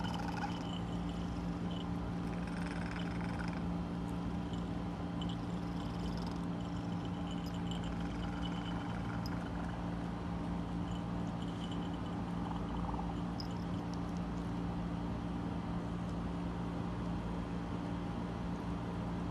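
Domestic cat purring steadily and continuously, the affectionate sound its owner calls its 'bird sound'.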